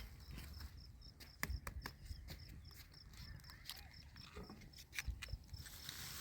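A cricket chirping steadily in short, even chirps, about three a second, with scattered clicks and knocks over it.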